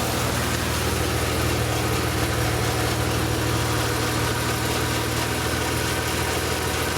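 BMW E36 M3's S50B32 straight-six engine idling steadily, the idle in which the owner hears a strange sound, with the VANOS under suspicion.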